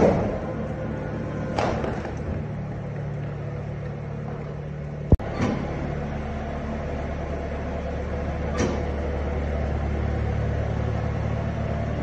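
Mixer feeder wagon running steadily as it drives along the feed passage putting out the cows' feed, a low mechanical hum. A few short hissing swishes come every couple of seconds, and there is one sharp click about five seconds in.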